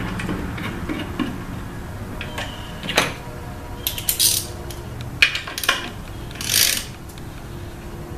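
Short metallic clicks and rasps of a small wrench working the centre bolt of a chrome motorcycle air cleaner cover, over a faint low hum. There are about half a dozen brief bursts, the longest near the middle and about two-thirds through.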